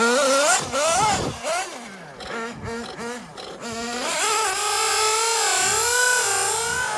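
Kyosho Inferno MP9 TKI4 nitro RC buggy engine revving in quick up-and-down blips of the throttle, dropping back, then holding a high, steady, wavering note from about four seconds in as the buggy runs at speed.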